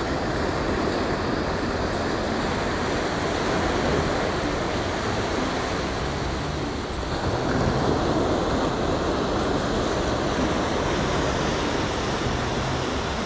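Steady rush of small surf washing onto a sandy beach, with wind rumbling on the microphone; the rush swells a little about four seconds in and again about eight seconds in.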